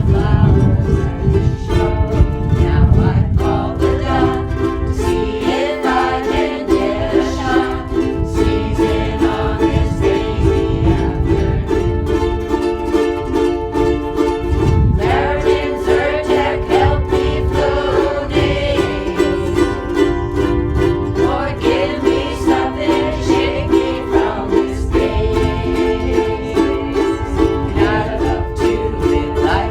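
Ukuleles strumming chords together in a steady, even rhythm: a ukulele group playing a song.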